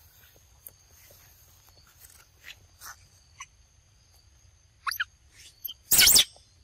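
A young macaque biting and chewing a green mango, heard as scattered short crisp clicks, with a loud short crackle about six seconds in. A steady high insect buzz runs underneath.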